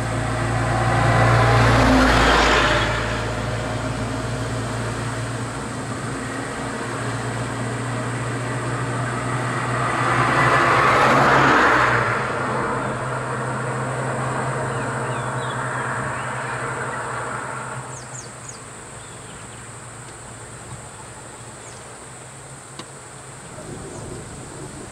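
Road vehicle engines: a vehicle passes close by about two seconds in and another around eleven seconds, over a steady engine drone at idle that stops about eighteen seconds in.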